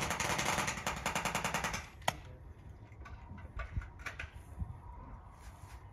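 Airsoft gun firing a rapid full-auto burst of evenly spaced shots that stops about two seconds in, followed by one sharp single shot and a few scattered, fainter shots.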